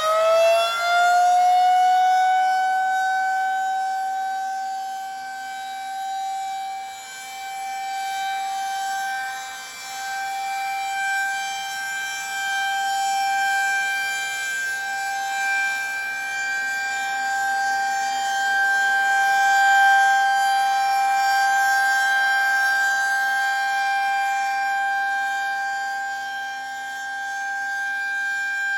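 Federal Signal 2001-SRNB rotating outdoor warning siren sounding its steady alert tone for a test. It finishes winding up to full pitch in the first second or two, then holds one high, steady tone. The loudness swells and fades slowly as the rotating horn sweeps past.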